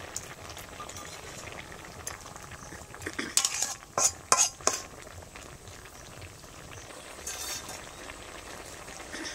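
Flat metal spatula stirring and scraping a simmering pumpkin-and-potato curry in an iron kadai, with a few sharp scrapes and clinks against the pan about three to four seconds in and lighter ones near the end. Sugar is being stirred in as the curry finishes cooking.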